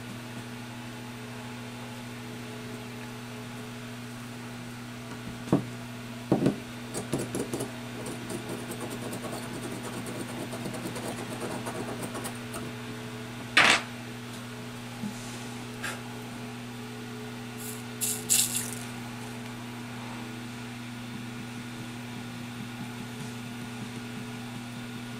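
Small clicks and clatters of tools being handled on an electronics repair bench, with one sharp click about halfway through, over a steady low electrical hum.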